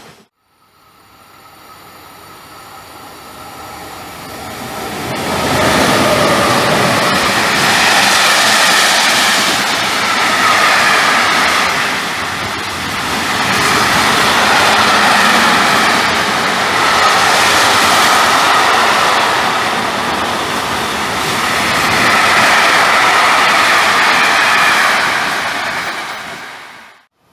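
Intermodal freight train hauled by two FS E.405 electric locomotives passing at speed: a steady loud rush of wheels rolling on rail and wagons going by. It builds over the first few seconds as the train comes in and dies away sharply near the end as the last wagons pass.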